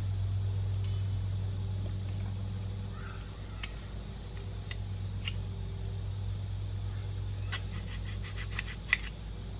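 Small metallic clicks and taps from tweezers working in a dial indicator's brass gear movement: a few single clicks, then a quick run of about eight clicks near the end, the last one the sharpest. Under it runs a steady low hum.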